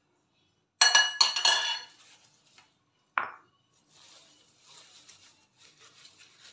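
A metal spoon clinking against a ceramic bowl, a quick run of ringing clinks about a second in. A single dull knock follows about three seconds in, the stone pestle set into the stone mortar, then faint rustling as cassava leaves are handled.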